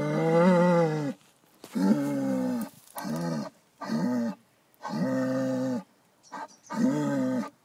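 A bull mooing in a sing-song run of about seven pitched calls, each rising and falling in pitch, with short gaps between them; the first call is the longest and loudest.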